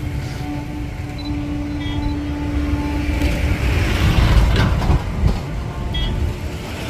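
Rumble of a vehicle close to the microphone, with a steady hum through the first half, swelling to its loudest as something passes about four to five seconds in.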